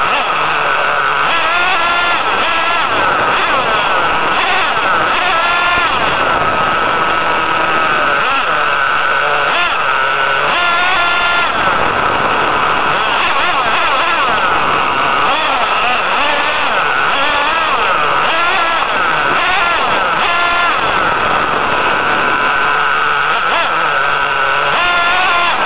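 HPI Savage 25 nitro RC monster truck's small two-stroke nitro engine heard close up from on board, running hard with its high-pitched whine rising and falling over and over as the throttle is opened and closed.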